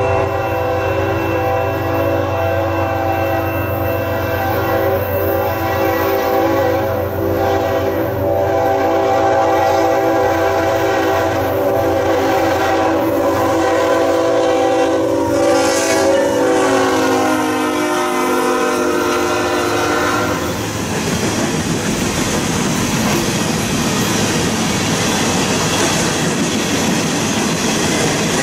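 CN freight locomotive sounding its horn in one long, sustained chord for about twenty seconds, over diesel engine rumble. The horn drops in pitch as the locomotive passes. Then the loud, even rolling and rattling of empty coal hopper cars going by takes over.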